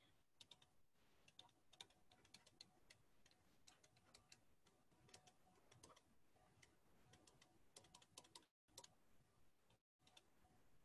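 Near silence broken by faint, irregular clicks: a stylus tapping on a pen tablet as handwriting is drawn.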